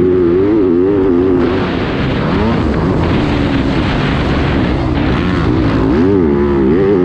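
Yamaha YZ250F's four-stroke single-cylinder engine under load as the bike is raced on a motocross track, the revs rising and falling with the throttle and gear changes, with a quick rise and drop about six seconds in.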